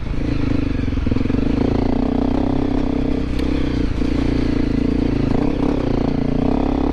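Honda CRF250L Rally's 250 cc single-cylinder four-stroke engine running steadily at low revs as the bike creeps over a rocky trail, with a few knocks from the bike and tyres over rocks.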